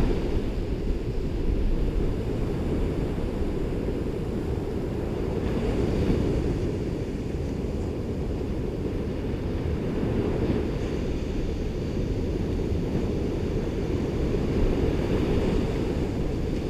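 Ocean surf at a beach: a steady low rumble of breaking waves with wind buffeting the microphone. The hiss of washing water swells a few times.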